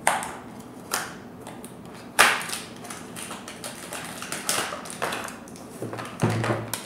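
Plastic toy packaging crinkling and crackling as it is torn open by hand, with a few sharp crackles followed by a busier stretch of rustling.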